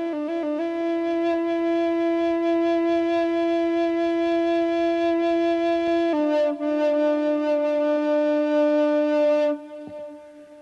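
Solo wind instrument playing slow, long-held notes: a quick ornament at the start, one long note, a step down to a slightly lower held note about six seconds in, then fading out near the end.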